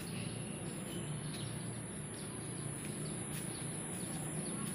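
Outdoor ambience: a steady, high-pitched insect drone, with a few faint bird chirps over a steady low rumble.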